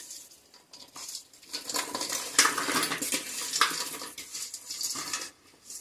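A metal spoon and cookware scraping and clattering in irregular bursts as fried small fish are added to the pickle gravy in an aluminium pan.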